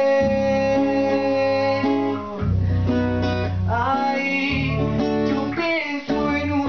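Acoustic guitar and electric guitar strummed together with male singing, a live band performance of a song.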